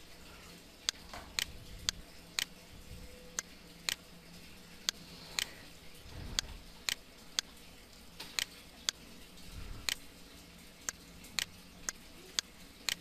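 Computer mouse clicking: a string of sharp single clicks at uneven intervals, roughly two a second.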